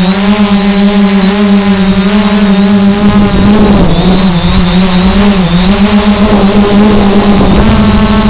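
Quadcopter drone's propellers humming loudly and steadily, with a thin high motor whine, the pitch wavering a little as it flies.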